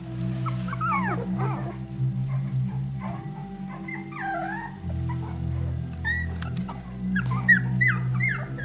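Finnish Lapphund puppies a few weeks old whimpering and squealing in short cries that slide down and up in pitch, thickest in the second half, over steady background music.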